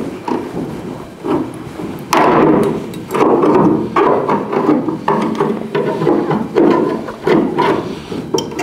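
Irregular hammer blows knocking at the gas filler door housing in an El Camino's rear quarter panel, about one to two a second, as the housing is beaten loose from the sheet metal.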